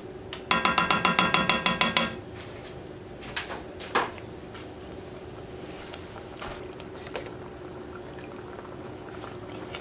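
Cooking spoon clattering rapidly against the side of a metal saucepan as sauce is stirred vigorously: about a dozen quick ringing knocks over a second and a half. Then a couple of single clicks, over a faint steady hum.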